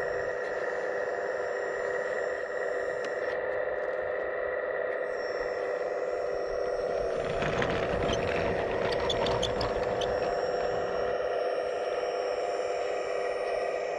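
Steady electric whine of a scale RC construction model's hydraulic pump and motors. A stretch of clicking and scraping from the model at work comes about halfway through.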